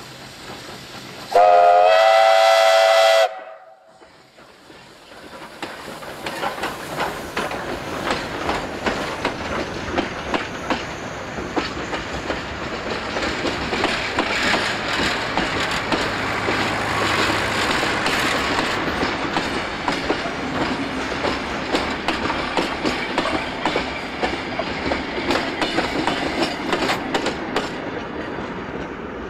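Oil-burning J class steam locomotive J541 sounds one whistle blast of about two seconds, the loudest sound here. Its train of wooden-bodied heritage carriages then rolls past, wheels rumbling and clicking over the rail joints, and the sound fades near the end.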